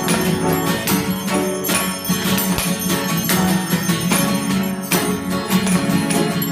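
Church bells ringing in a dense, continuous peal: small bells struck again and again over a low, steady hum from a larger bell.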